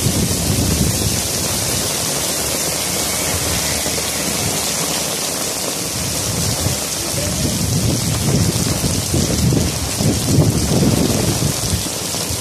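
Heavy rain falling on paving and standing water, a steady hiss. Underneath runs an uneven low rumble that swells for a few seconds late on.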